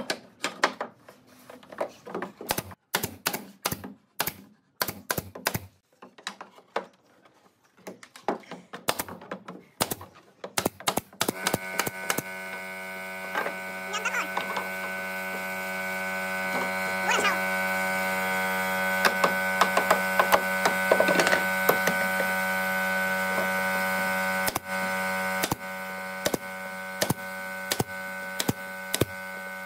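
Pneumatic nail gun firing nails into pallet boards, a quick irregular string of sharp clicks. About eleven seconds in, the air compressor feeding it starts up and runs with a steady hum, dropping in level about twenty-four seconds in, with more nail shots over it.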